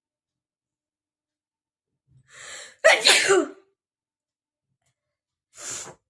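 A person sneezing once, loudly, about three seconds in: a quick in-breath, then a sudden voiced 'achoo'. A short breath follows near the end.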